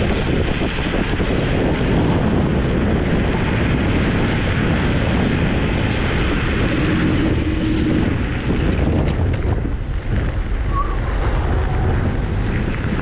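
Wind buffeting the microphone of a rider on a moving electric scooter: a steady, loud rush with a low rumble underneath. A brief steady tone sounds about seven seconds in.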